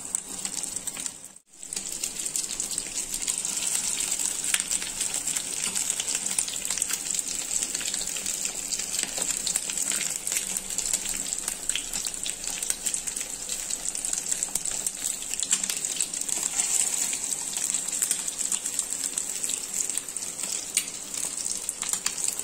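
Oil sizzling and crackling steadily in a nonstick frying pan as egg-coated stuffed boiled eggs fry. The sound drops out briefly about a second and a half in.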